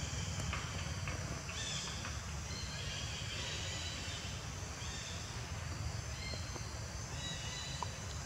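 Outdoor ambience: a steady low rumble under high calls that start and stop every second or so.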